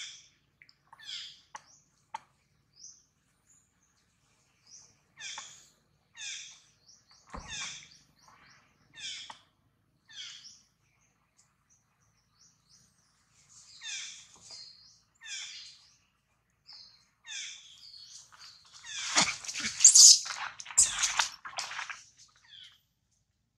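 Young long-tailed macaque giving short, high squealing cries, roughly one a second with pauses, breaking into a louder, denser run of cries about 19 seconds in.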